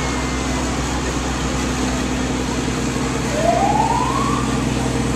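Vehicle engines running with a steady low hum, and a single short rising siren whoop about three and a half seconds in.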